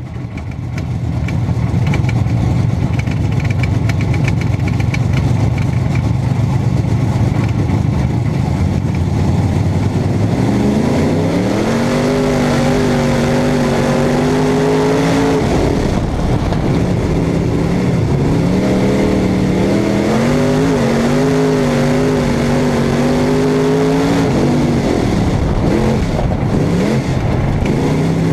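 Super stock race car's engine heard from inside the cockpit: it idles steadily for about ten seconds, then rises in pitch as the car pulls away and holds there, easing off and picking back up a couple of times.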